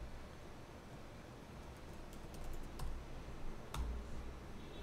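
Typing on a computer keyboard: a quick scatter of key clicks in the middle, then one louder keystroke a little before the end.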